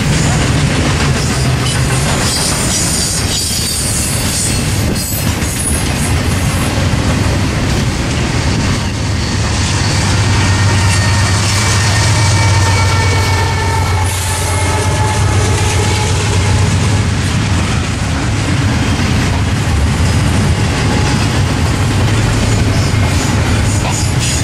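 Norfolk Southern freight train passing, its cars rolling and clacking steadily over the rails. A high wheel squeal rises over the rumble for several seconds around the middle.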